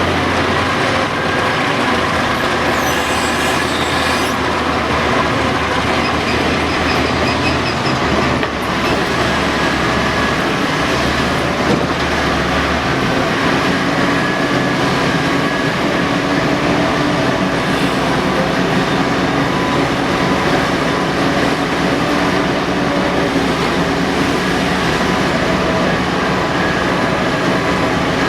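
Caterpillar 5130B mining excavator working, its diesel engine and hydraulics running under load in a steady heavy mechanical din, with a brief high squeal about three seconds in.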